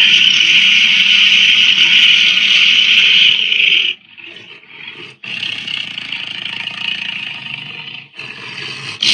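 Creature roar sound effects: a long, loud roar lasting about four seconds, then after a short quieter gap a second, somewhat softer roar, and a third loud roar starting near the end.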